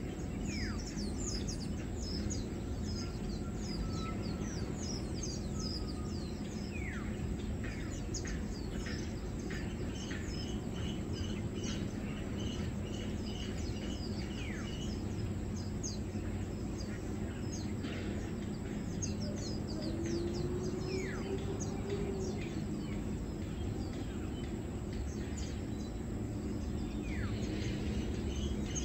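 Small birds chirping around the tree, many short high notes scattered throughout, with a run of evenly spaced high notes, about two a second, for several seconds in the middle. A steady low background rumble lies underneath.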